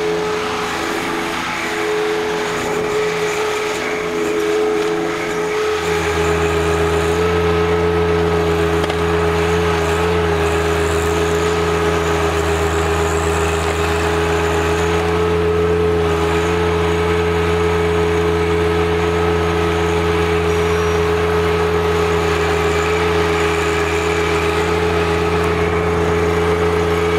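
Compact tractor engine running steadily under load as its rear-mounted stump buster blade rips a tree stump and roots out of the ground, with a steady whine over it. A deeper drone joins about six seconds in.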